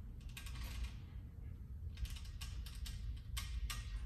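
TRX suspension strap hardware clicking and creaking in three short clusters as the straps take and release the body's weight during kneeling fallout reps, over a low steady hum.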